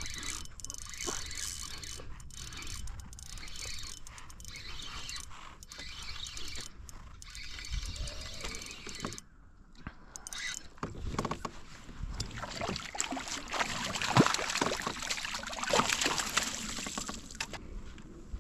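Water splashing beside a kayak as a hooked fish is played in close on a bent rod and netted, in uneven bursts that build up and are loudest over the last several seconds.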